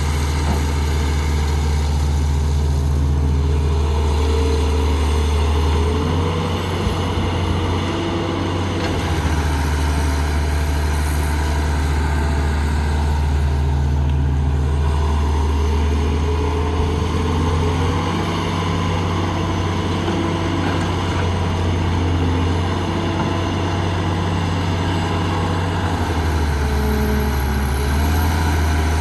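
Heavy diesel engine of earthmoving equipment running steadily, its low note shifting pitch a few times.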